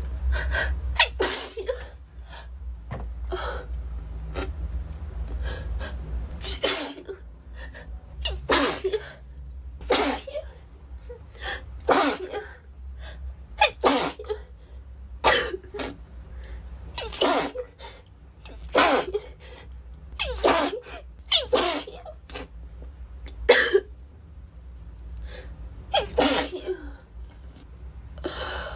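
A girl sneezing over and over: more than a dozen sharp sneezes, most coming every one and a half to two seconds, with a few longer pauses between them.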